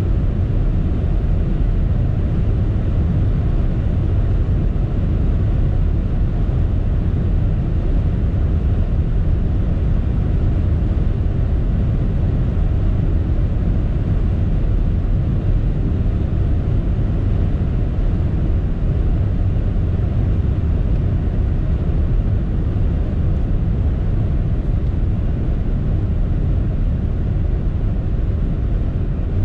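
Steady wind and tyre noise heard from inside the cabin of a Toyota Mirai 2 hydrogen fuel-cell car cruising at about 180 km/h, its top speed: an even, low rumble with no engine note. It eases slightly near the end as the car slows under regenerative braking.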